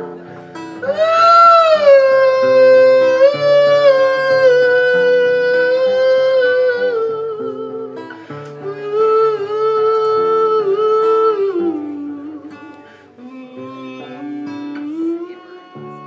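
A man singing long, drawn-out notes that slide between pitches, over a picked acoustic guitar. The voice is strongest in the first half and softer near the end.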